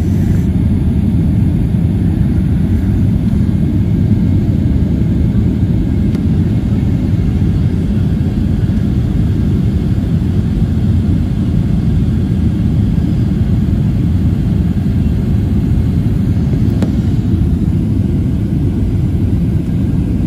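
Steady low roar of jet engines and airflow heard inside the cabin of a Southwest Airlines Boeing 737 on descent, from a window seat over the wing.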